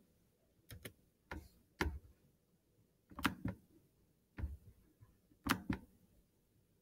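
Computer mouse clicking: about nine short, sharp clicks at irregular intervals, some in quick pairs.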